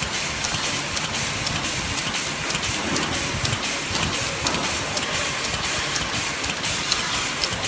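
Automatic plastic-spork feeder and flow-pack packaging machine running, a rapid, regular mechanical clicking over a steady hiss as the cutlery is fed into the wrapper.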